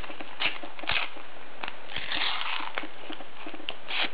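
A Panini sticker packet being torn open by hand: sharp crackles of the wrapper, with a longer tearing rustle about two seconds in.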